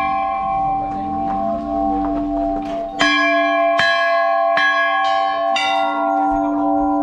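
Temple bells struck by hand. The first ring carries on from a strike just before, then four more strikes come about three seconds in, roughly a second apart, the rings overlapping into continuous ringing.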